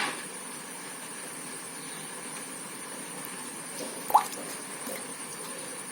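Steady hiss of aquarium water moving, from the tank's filter or aeration running. A short rising squeak stands out about four seconds in.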